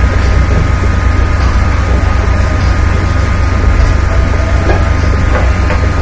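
A loud, steady low mechanical rumble with a faint steady high tone above it.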